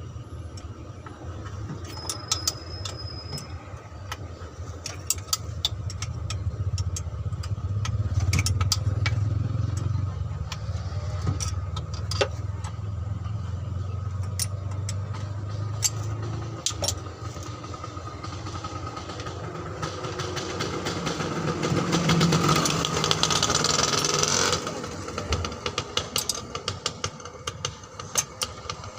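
Hand tools working on a stuck cover's bolts: scattered sharp metallic clicks and clinks. Under them runs the low steady drone of an engine running, and a louder rattling rush lasts a few seconds near the end.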